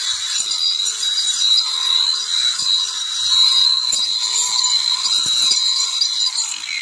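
DeWalt 20V brushless cordless 4-1/2-inch angle grinder with a 40-tooth saw blade running flat out while slashing through weeds and vines: a steady high whine that wavers slightly as the blade bites into the stems, beginning to spin down at the very end.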